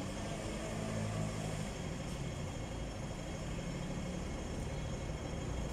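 Steady low hum of idling vehicle engines in city street traffic.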